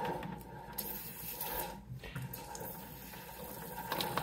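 Aerosol chain lube spraying onto a snowblower's drive chain and sprockets, a steady spray with a short break about two seconds in.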